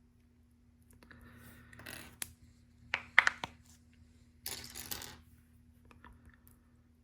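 Plastic LEGO pieces being handled: rustling, then a quick cluster of sharp clicks about three seconds in, then more rustling.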